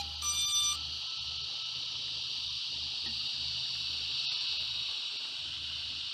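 Short electronic beeps from a Five33 Switchback Pro FPV quad as it arms, then a steady high hiss of its motors and props in flight. It is heard through the small built-in microphone of the onboard Caddx Peanut camera.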